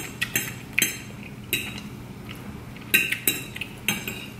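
A metal fork clinking and scraping against a plate of food, about seven short, sharp clinks at uneven intervals.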